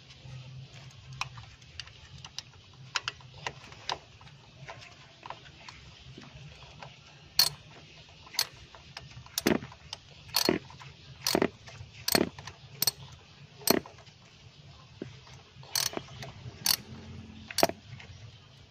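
Ratchet of a 7mm socket wrench clicking as it works a terminal screw on a distributor-mounted ignition coil. Faint scattered clicks at first, then sharp single clicks about once a second from around seven seconds in, with a short pause about two-thirds of the way through.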